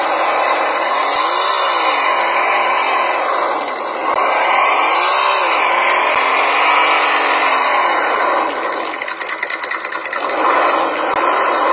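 Simulated engine sound from the RC crawler's speaker-fitted sound module, revving up and dropping back over and over, falling to a lower, fast-pulsing run about nine seconds in before revving again.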